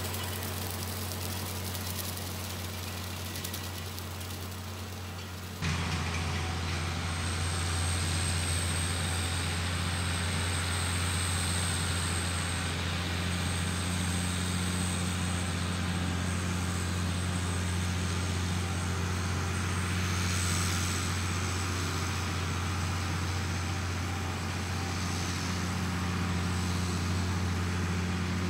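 International Harvester 1066 tractor's diesel engine running steadily while it pulls a rotary cutter through tall grass, a constant low drone. The drone jumps suddenly louder about six seconds in and holds there.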